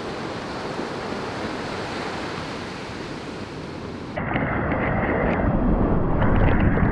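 Ocean surf breaking and washing up the beach, a steady hiss. About four seconds in it changes to louder, duller water rushing and splashing close up as a surfboard is paddled through breaking whitewater.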